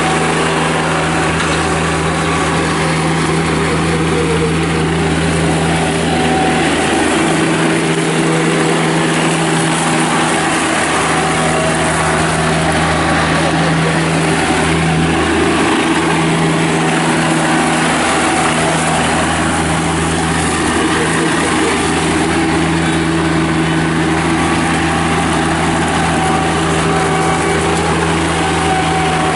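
John Deere X758 garden tractor's Yanmar three-cylinder diesel running steadily as the tractor drives.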